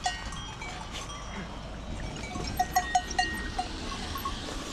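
Bells on livestock clanking irregularly, a quick run of clanks about two and a half to three and a half seconds in.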